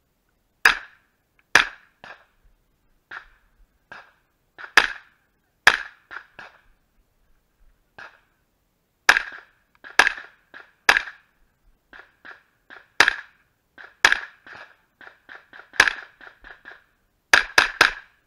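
Pistol-calibre carbine firing single shots, the loudest often about a second apart, with fainter cracks in between and a rapid string of four shots near the end.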